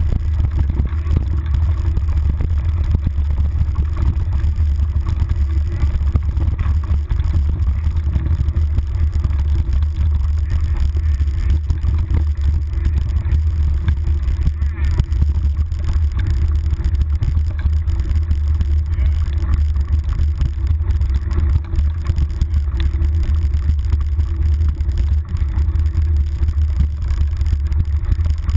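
Mountain bike rolling fast down a rough dirt trail, heard through a handlebar-mounted GoPro Hero: a loud, steady low rumble of wind and vibration with constant rattles and knocks from the bumpy ground.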